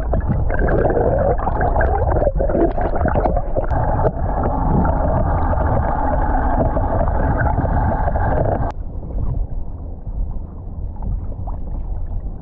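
Small inflatable boat under way with its 20 hp outboard motor running: a steady rumble mixed with rushing water and wind noise. It drops suddenly to a quieter rumble about nine seconds in.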